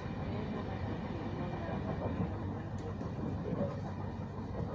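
Steady running noise of a passenger train heard from inside the carriage, a continuous rumble with a low hum underneath.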